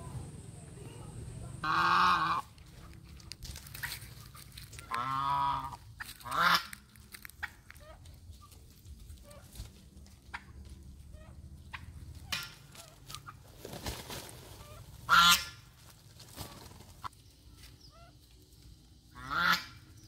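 Domestic geese honking: about five loud, wavering calls spread a few seconds apart.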